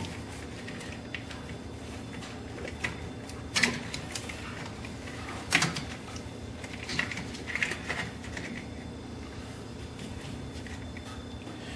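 Scattered light clicks and knocks of gloved hands handling the injection pump's electrical connector and wiring in a diesel engine bay, over a steady low hum.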